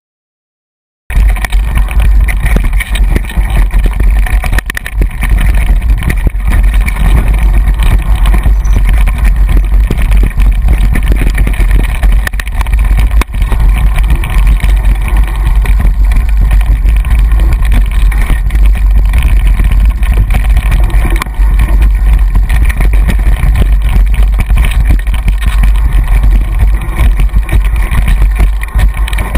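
Heavy wind buffeting and ride rattle on a moving helmet- or bike-mounted action camera sealed in its housing, descending a dirt trail. It cuts in suddenly about a second in and stays loud and rumbling throughout.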